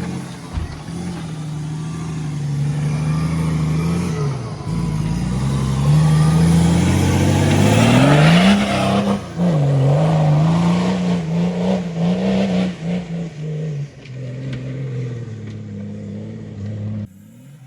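Nissan Patrol off-roader's engine running under load, its pitch rising and falling as the throttle changes, with a sharp climb in revs about eight seconds in, the loudest moment. The sound drops abruptly near the end.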